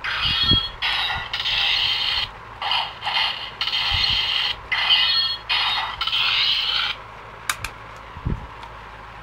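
Electronic slash sound effects from the Bandai DX Gatack Double Calibur toy's small speaker: a run of harsh, thin bursts, each half a second to a second long with short gaps, lasting about seven seconds. Two short plastic clicks follow near the end.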